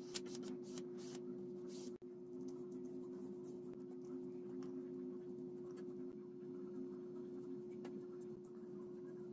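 Paintbrush bristles scratching over bare wood in short strokes as a finish is brushed on, with a steady low hum underneath. The strokes are brisk for the first couple of seconds, then lighter and sparser.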